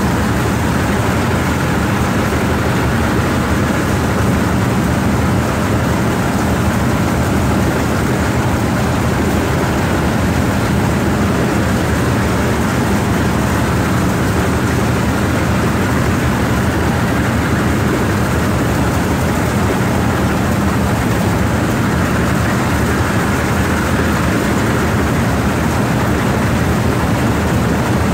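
Motorized rice thresher running steadily, its drum stripping grain from rice sheaves as they are fed in: a loud, constant machine drone with a low hum under a dense rushing noise.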